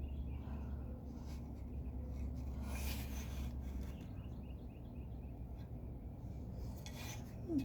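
Soft rubbing and scraping of metal parts and a rubber seal being worked into place by hand, over a steady low hum that fades about halfway through; a short squeak near the end.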